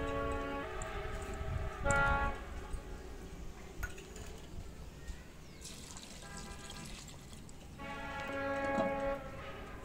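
Water poured from a steel jug into a clay cooking pot of meat and chopped onions, about eight seconds in. Background music with held notes comes and goes throughout.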